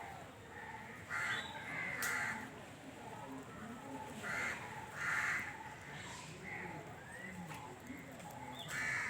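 Crows cawing: short, harsh calls in pairs, spaced a few seconds apart.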